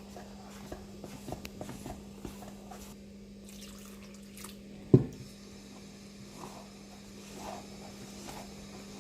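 Water poured into gram flour in a bowl and the batter stirred, with small wet clicks and squishing, and one sharp knock about five seconds in. A faint steady hum sits underneath.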